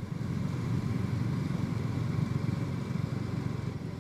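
Motorcycle engine running steadily at low speed, a low, even rumble as the bike rolls along slowly.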